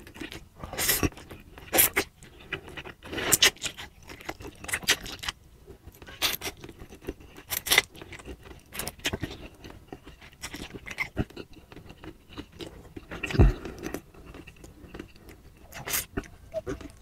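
A person eating instant fried ramen noodles close to the microphone: repeated slurps and chewing, one short burst roughly every second. A stronger dull knock comes about two-thirds of the way through.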